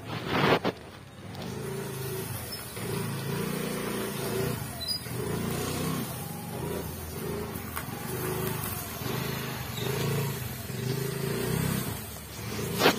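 Small scooter engine running and repeatedly revving up and dropping back as it is ridden back and forth over a layer of dried mustard stalks to thresh out the seed. A short loud burst of noise comes at the very start.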